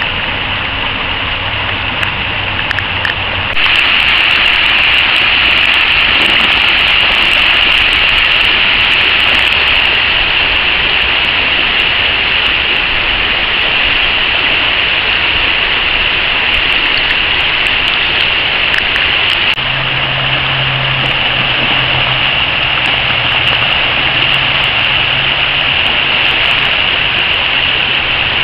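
Shallow river water rushing over a rocky riffle: a steady, loud rushing noise that gets louder about three and a half seconds in.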